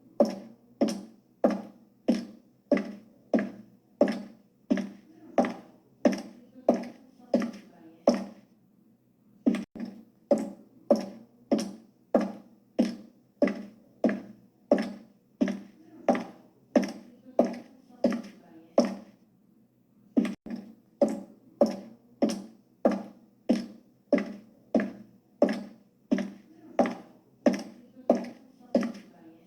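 High-heeled shoes walking: sharp heel clicks at a steady pace of about two steps a second, each ringing briefly. The steps pause twice for about a second, around eight and nineteen seconds in.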